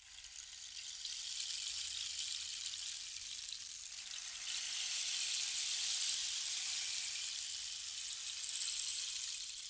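A steady, high-pitched hiss that fades in at the start and grows a little louder about halfway through.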